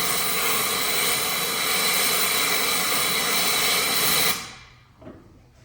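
Compressed-air blow gun hissing steadily as it blows a pull-string through the inside of a hollow motorcycle handlebar, cutting off about four seconds in.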